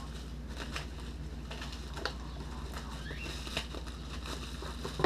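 Packing material rustling and crinkling as a heavily wrapped package is opened by hand, with scattered small clicks and a couple of sharper ticks.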